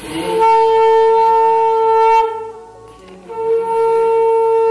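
Conch shell (shankha) blown in two long, steady blasts, with a short break for breath between them.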